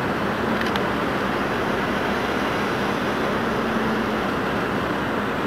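Steady low rumble and hiss of the helicopter destroyer Hyuga's machinery as it passes close by, with a faint steady hum that swells slightly about three and a half seconds in.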